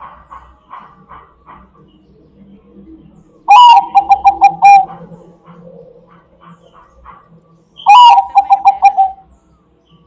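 Bangkok-type perkutut (zebra dove) cooing: two loud calls about four seconds apart. Each is a short swooping opening note followed by a quick, even run of about seven coos. Faint chirps are heard between the calls.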